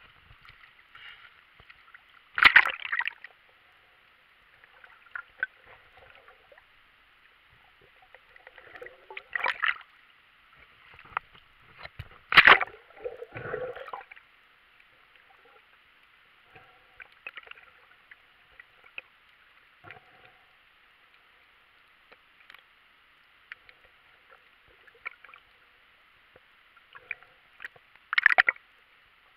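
Muffled water sloshing and gurgling around a camera in a waterproof housing, over a steady hiss, with several short louder splashes from a swimmer moving at the surface.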